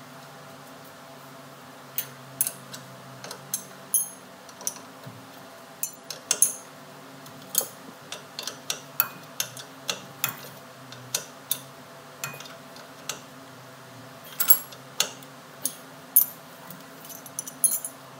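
Metal wrench clinking and tapping against the brass air fitting and bolts of a new air-brake chamber as it is tightened by hand: irregular sharp clicks, one or two a second, starting about two seconds in.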